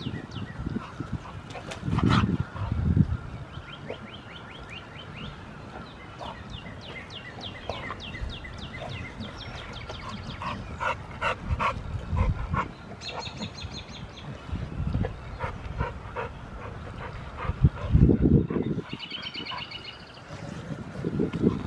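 American Bully dogs play-wrestling, an adult and a blue merle puppy, with dog vocal noises in irregular short bursts. Repeated high chirps run in the background.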